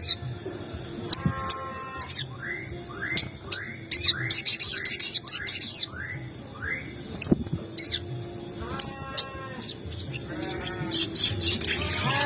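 Sogon (crested jay) calling: a run of about eight short rising whistled notes, roughly two a second, overlapped by high shrill chattering in the middle, with harsher rasping calls near the start and twice in the second half.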